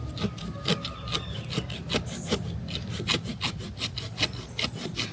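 Small hand saw cutting through a log of hard wood, rasping back-and-forth strokes about three a second.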